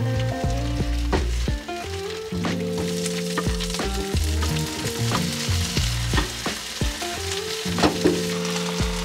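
Spinach and halved cherry tomatoes sizzling in a hot nonstick frying pan while a spatula stirs and scrapes them, the sizzle strongest in the middle as the tomatoes go in. Background music plays underneath.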